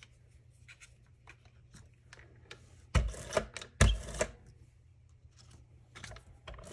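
Adhesive tape runner drawn across paper die-cuts on a cutting mat, two short strokes about three and four seconds in. Light paper handling and taps come before and after.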